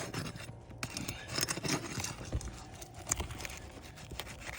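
Flat bar worked under an asphalt shingle, scraping and crackling irregularly as it breaks the shingle's adhesive seal.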